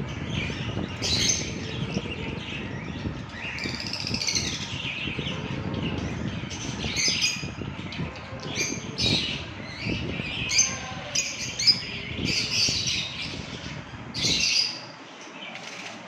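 Caged lovebirds and budgerigars chirping and squawking in many short, sharp calls, over a low rumble that drops away near the end.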